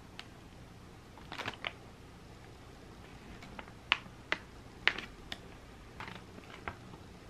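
Plastic food packaging crinkling and clicking as bagged groceries are handled, in irregular sharp crackles, the loudest a handful about four to five seconds in.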